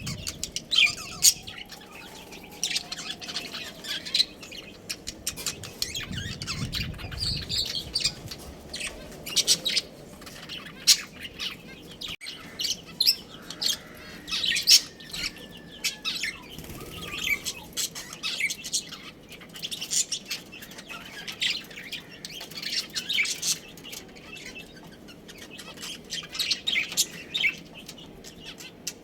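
Budgerigars chirping and chattering, many short high chirps overlapping without pause.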